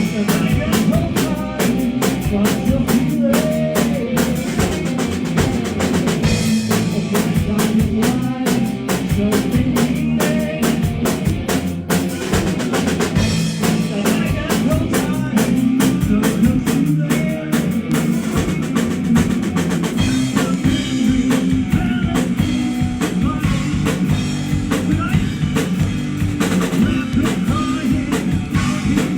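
A live rock band playing an instrumental passage, with drum kit (bass drum, snare and rimshots) driving a steady beat over bass and guitar.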